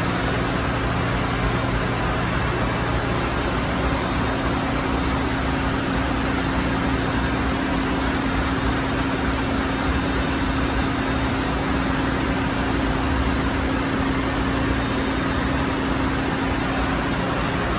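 Ship's engine-room machinery running: a steady, even roar of mixed machine noise with one steady low hum held through it.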